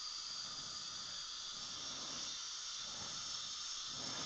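Steady, faint hiss with no clear events in it.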